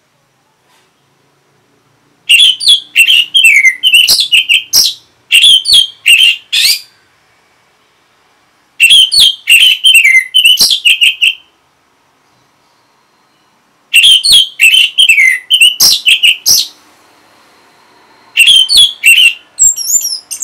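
An orange-headed thrush (anis merah) singing in four loud bursts of fast, varied whistled and chattering notes, each a few seconds long, with pauses of about two seconds between them. The first bout begins a little over two seconds in.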